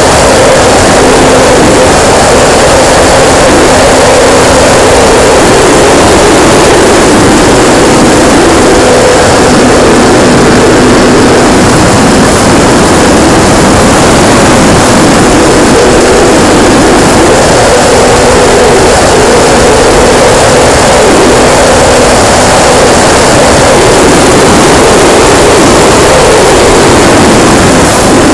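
Radio-controlled P-51D Mustang model in flight, heard from its onboard camera: the motor and propeller running steadily under loud, clipped wind rush.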